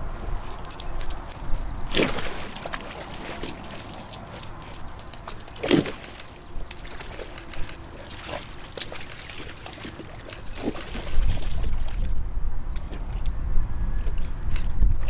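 Soft-coated wheaten terriers splashing in a plastic kiddie pool, water sloshing and their collar tags jingling in quick irregular clatters, with a few heavier splashes. About eleven seconds in the jingling dies down and a steady low rumble comes in.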